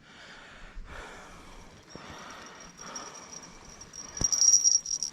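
An insect buzzing in a steady high-pitched trill that comes in about two seconds in and grows loudest near the end, with one sharp click just after four seconds.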